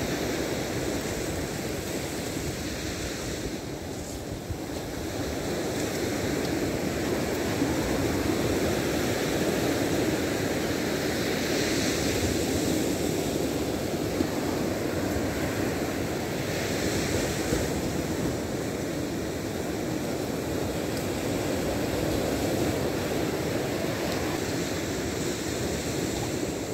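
Ocean surf breaking on a sandy beach: a steady rush of waves that swells louder twice in the middle as breakers wash in.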